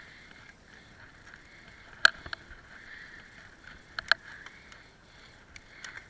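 A bicycle ridden over a rough, patched tarmac path, heard through its onboard camera: sharp clicks and knocks as the bike rattles over bumps, the loudest about two seconds in and a pair around four seconds, over a steady hiss.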